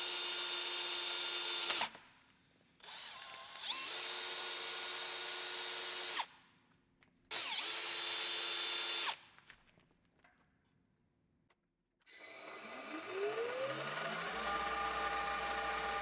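Electric drill running in short stretches with a steady whine, stopping and restarting several times. After a short pause it spins up with a rising whine and runs steadily again.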